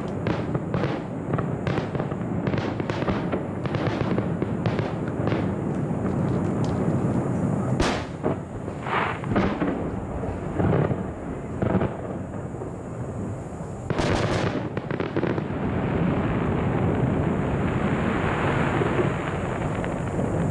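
Aerial fireworks shells bursting: a fast run of bangs about two a second, a single sharp bang about eight seconds in, a cluster of bangs about fourteen seconds in, then a continuous rushing noise over the last few seconds.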